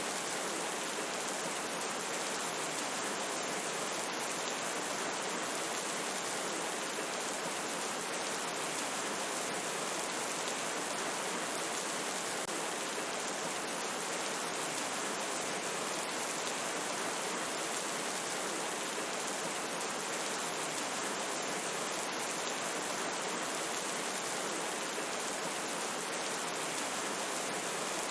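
Steady rain falling, an even hiss of many fine drops that does not change.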